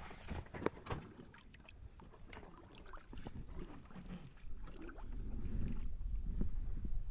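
Knocks and handling noises aboard a small boat, a few sharp knocks in the first second, then a low steady rumble from about five seconds in.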